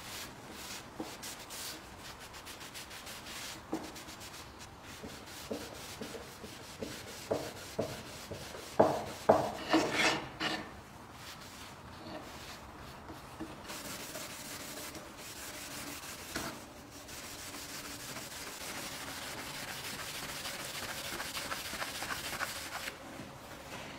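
Cloth pad rubbing food-safe wax into a wooden board, a steady scuffing, with a run of knocks about a third of the way in that are the loudest sounds.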